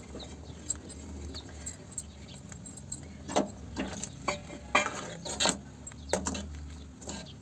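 Metal ladle stirring a thin simmering batter in an iron kadhai, clinking and scraping against the pan several times from about three seconds in, over a steady low hum.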